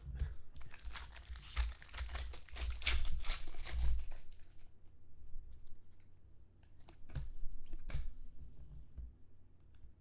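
A foil trading-card pack wrapper crinkling and tearing in a dense run over the first four and a half seconds. A few shorter rustles of the wrappers and cards being handled follow near the end.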